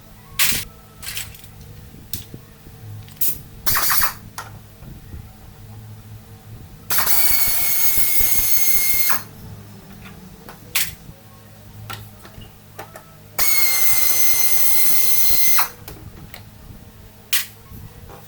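A power tool runs in two steady whining bursts of about two seconds each, with sharp clicks and knocks of hand tools in between, while a scooter's rear wheel is being worked on.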